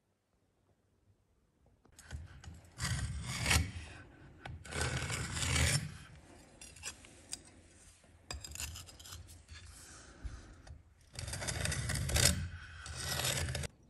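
A height gauge's steel scriber scratching a centre line along a knife blade's edge as the gauge slides across a granite surface plate. It makes a series of scraping strokes starting about two seconds in, the loudest near the end.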